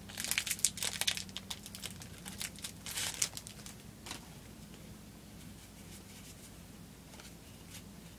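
Dragon Ball Z trading card booster pack wrapper crinkling as it is torn open and crumpled. The crackling comes in two spells, at the start and around three seconds in, and dies away after about four seconds.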